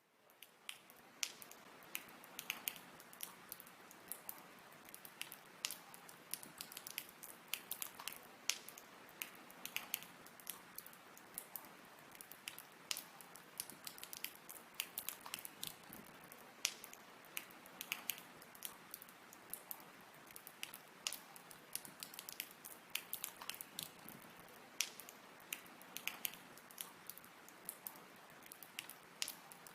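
Water droplets dripping irregularly, several sharp drips a second, some with a short plinking tone, over a faint steady hiss.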